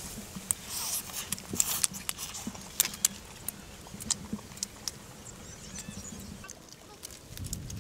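Irregular light knocks and clicks of hard objects, thickest in the first few seconds and sparser after.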